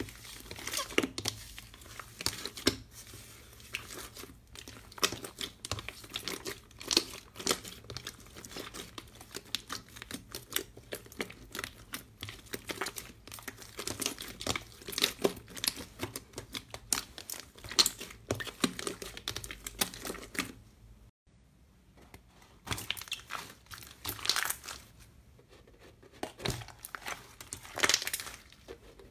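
Hands kneading, squeezing and pulling apart blue slime: dense, irregular sticky crackles, pops and crinkling. The sound drops out for a second or so about two-thirds of the way through, then the squishing and crackling resume.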